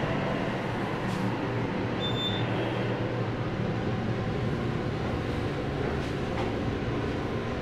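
A 1994 Montgomery KONE hydraulic elevator running, heard from inside the cab: a steady hum from the hydraulic pump and the moving car, with one brief high beep about two seconds in.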